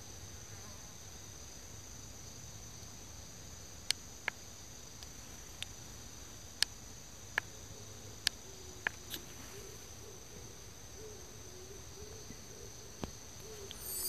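Steady high-pitched chorus of insects, with a handful of sharp, isolated clicks scattered through the middle.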